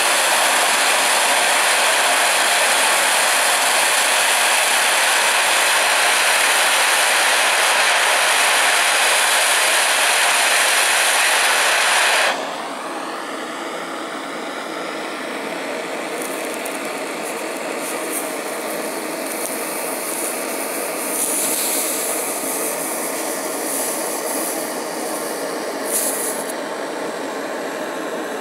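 Gas torch burning with a loud, steady hiss against a knife blade, stopping abruptly about twelve seconds in. After it, a quieter hiss with a few brief rasping sounds as the hot blade is pressed into an onion.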